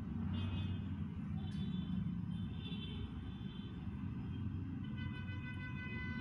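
Steady low rumble of background road traffic, with faint high-pitched tones over it that come and go and are clearest near the end.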